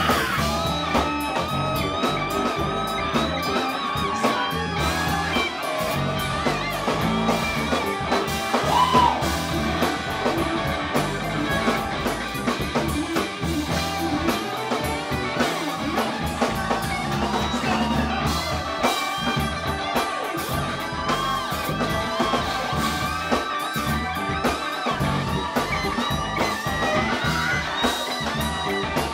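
Live rock band playing with electric guitars, bass guitar, drum kit and keyboard.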